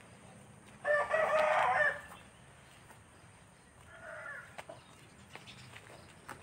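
A rooster crowing once about a second in, loud and lasting about a second, followed a few seconds later by a shorter, fainter call.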